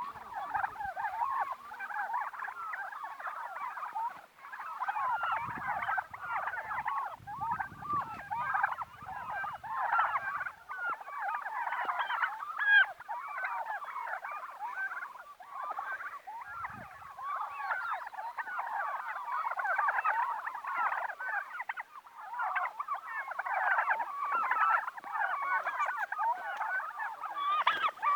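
A flock of domestic turkeys calling together, with many overlapping short calls making one continuous chatter.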